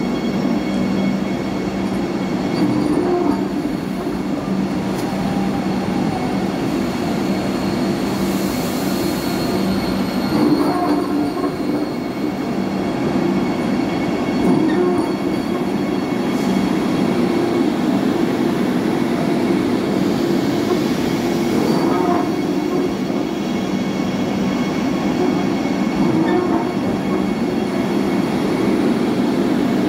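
Vande Bharat Express electric multiple-unit train rolling slowly past, its wheels and bogies making a steady rumble and hum on the rails.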